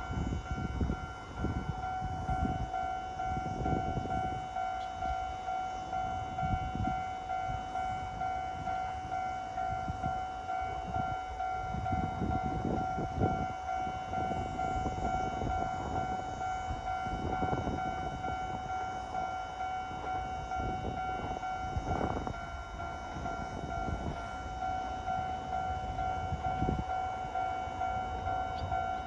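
Japanese railway level-crossing alarm ringing steadily as a train approaches, with wind gusting on the microphone.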